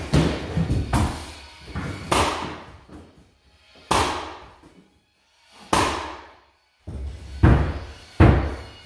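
Pneumatic nailer firing nails into hardwood flooring boards: several sharp shots at uneven intervals, a second or two apart, each trailing off briefly.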